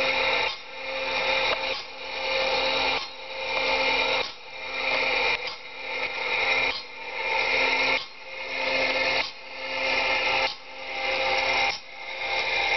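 Automatic band saw blade sharpening machine grinding the teeth in a steady cycle, the grinding rising and then dropping away about once every second and a quarter, one cycle per tooth.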